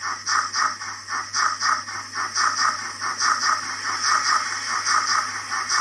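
Hornby W1 model steam locomotive running on a rolling road: a regular rattling, hissing beat about three times a second over a faint steady low hum.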